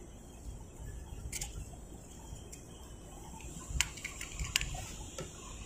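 A handful of faint, sharp clicks and taps of small metal parts being handled, most of them about four seconds in, as a dropped screw is fished out from behind a motorcycle's footpeg bracket. A faint steady high-pitched tone runs underneath.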